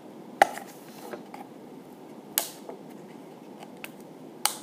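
Small cardboard box of an Apple Lightning cable being opened by hand: three sharp snaps of the packaging, the loudest about half a second in and another near the end, with a short scraping rasp about two seconds in and light taps and rustles between.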